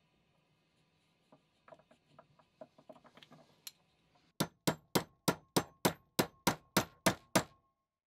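Hammer striking metal: about a dozen quick, evenly spaced ringing blows, roughly four a second, starting about halfway through. Before them come a few faint light taps and scrapes of metal tools.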